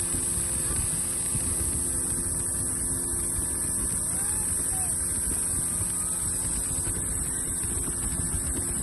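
An engine running steadily, a low drone with a constant hum, under a steady high-pitched hiss.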